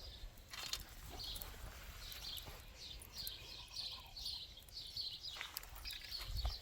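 A small bird chirping over and over outdoors, short high calls repeated about two or three times a second, over a faint low rumble.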